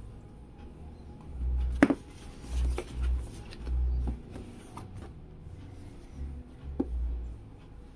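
A cardboard motherboard box handled and turned in the hands: dull low thumps from the handling, with a sharp tap about two seconds in and another near the end.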